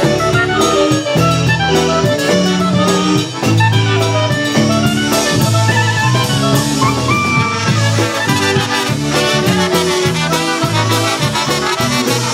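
Live polka band playing an instrumental polka: two trumpets and a clarinet carry the melody over accordion, concertina, bass guitar and drums, with the bass and drums keeping a steady beat.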